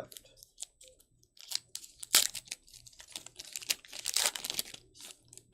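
A foil trading-card pack wrapper being torn open and crinkled by hand: irregular crackling and tearing, loudest about two seconds in and again around four seconds in.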